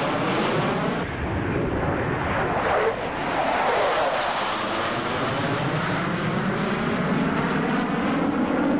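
Two Sukhoi Su-22 jets flying past in formation, their engines making a loud steady jet roar whose tone sweeps up and down as they pass. The roar changes abruptly about a second in and again about three seconds in.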